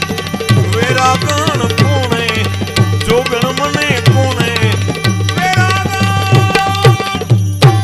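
Gujarati devotional bhajan accompaniment: tabla drumming with a harmonium melody and small hand cymbals (manjira) struck in time. A few strong drum strokes come near the end.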